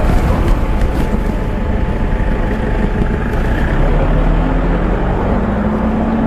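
Toyota Innova pulling away past the microphone, its engine note rising slowly as it accelerates from about four seconds in, over a steady low rumble.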